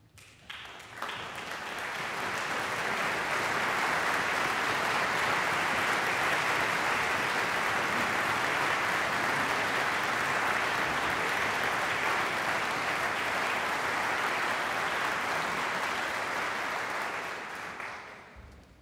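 Concert audience applauding: a few first claps, then clapping that builds over a couple of seconds, holds steady, and dies away near the end.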